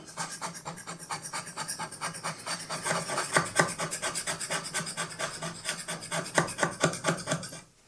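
Hand scraper cutting the cast-iron way surface of a Schaublin 102 lathe compound slide in rapid short strokes, several a second. This is a step-scraping roughing pass, taking the worn surface down.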